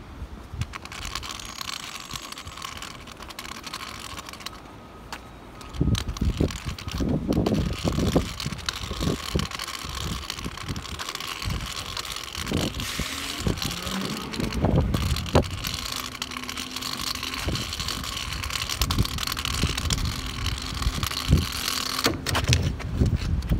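Garbage truck on a cardboard recycling run, heard out in the rain against a steady hiss; from about six seconds in, uneven low rumbling bursts come and go.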